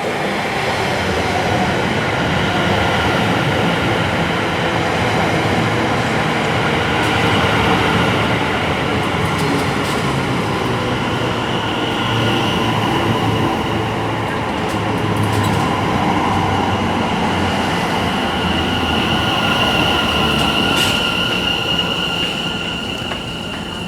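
Passenger train running on rails: a steady rumble with a high whine that grows stronger through the second half, and a few faint clicks.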